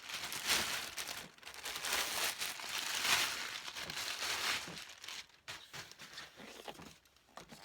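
Packaging crinkling and tearing as it is pulled off a newly delivered penny board, in dense rustling bursts for the first four to five seconds, then a few softer handling clicks.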